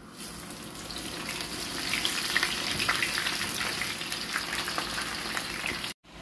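Cut potato fries deep-frying in hot oil in a pan: the oil sizzles with dense crackling and popping as the fries go in. It starts suddenly and grows louder over the first couple of seconds.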